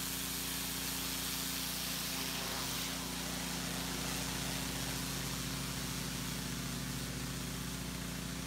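Pressure washer running steadily: a constant low drone of its motor and pump under the hiss of the turbo-nozzle jet spraying brick and concrete.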